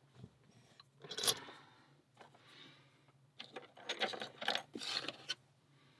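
Small metal clinks and scrapes of lock-picking tools and a padlock being handled: a burst about a second in, a softer scrape, then a run of rattling clicks in the second half.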